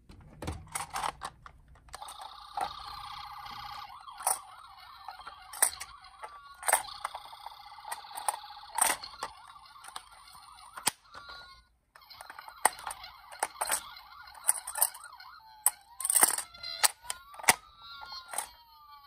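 Electronic sirens of toy ambulance and police minicars sounding, with many sharp clicks and knocks from the toy cars. The siren cuts out briefly about two-thirds of the way through, then returns, with rising and falling wail tones near the end.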